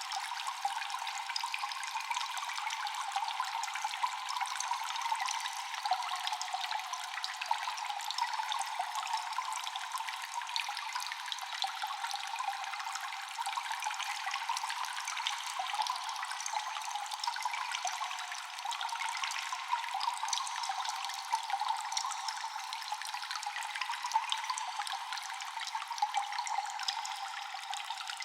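Water dripping constantly in a cave, many echoing drops falling close together over a steady trickle, thin with no bass.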